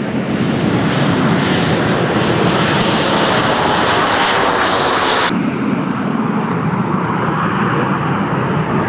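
Hawker Siddeley Dominie T1's twin rear-mounted Viper turbojets at take-off power, a loud steady jet roar as the aircraft rolls down the runway and lifts off. The roar turns suddenly duller about five seconds in.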